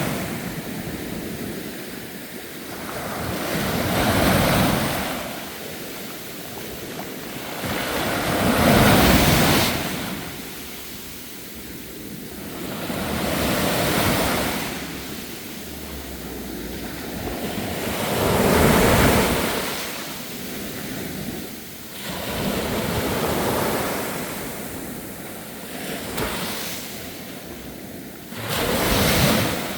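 Sea surf breaking on the shore, each wave swelling up and washing out again about every four to five seconds.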